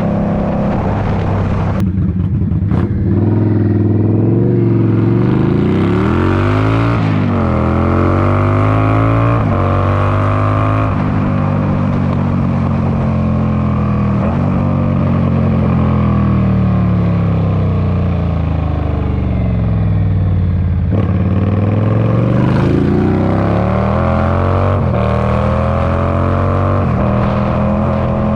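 Indian Scout Bobber's V-twin engine through straight-pipe exhaust, pulled hard: the revs climb and drop back through several quick upshifts a few seconds in, ease off through the middle, then climb through more upshifts near the end.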